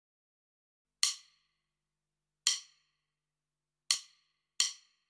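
Count-in clicks with a woodblock-like tone: four sharp, dry clicks, the first three about a second and a half apart, the fourth coming at twice that pace as the count speeds up to the beat.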